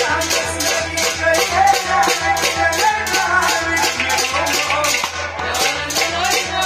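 Kashmiri folk song: a man singing to harmonium, with a tumbaknari (clay goblet drum) keeping a quick, steady beat.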